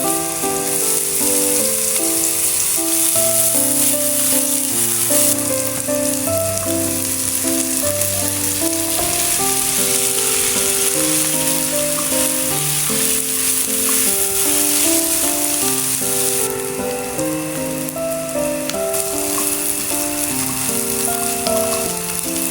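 Food sizzling as it fries in a pan: a steady hiss, over soft background music with a melody.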